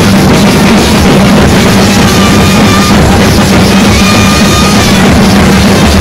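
A band party's drums pounding at full loudness, dense and steady. A long high note is held twice over it, about two and four seconds in.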